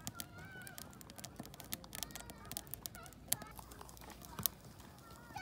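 Wood fire crackling in a stove, a steady scatter of sharp pops and snaps. Faint honking calls can be heard in the first second.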